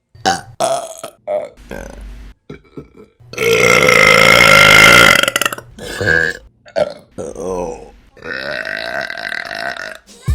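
Women burping one after another: several short burps, then a long, loud burp from about three and a half seconds, more short ones, and another long burp near the end.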